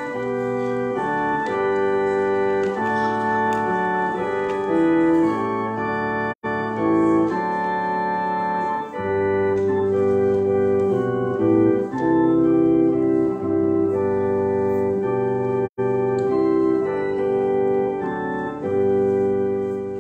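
Organ playing a slow passage of sustained, held chords that change every second or so. The sound drops out completely for an instant twice.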